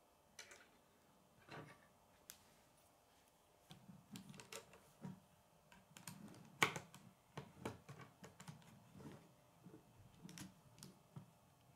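Plastic K'nex rods and connectors clicking and rattling as they are handled and snapped together: a string of light, irregular clicks, the loudest a little past the middle.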